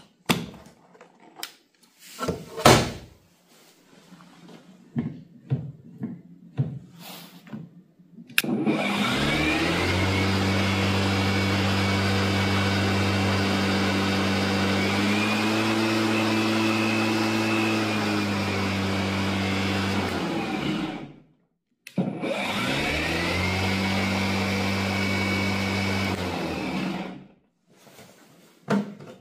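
Cordless lawn mower's electric motor (Parkside PRMA 40-Li B3) spinning up with a rising whine, running steadily for about twelve seconds and winding down, then started again for about five seconds and winding down. Clicks and handling knocks come before the first start.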